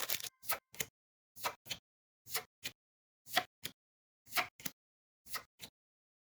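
Trading cards being slid or flipped one at a time, each card a quick pair of swishes, about one card a second.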